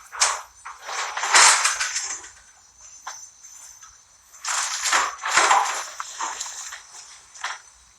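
Crickets chirping steadily, with several loud crunching or rustling noises of unclear source over them, the loudest about a second in and again around five seconds in.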